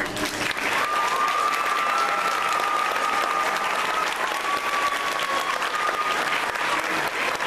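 Audience applauding at the end of a song, with a long high held call over the clapping from about a second in.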